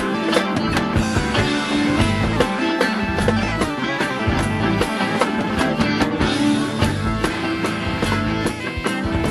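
1970s Brazilian progressive rock played by a full band, with electric guitar and drum kit.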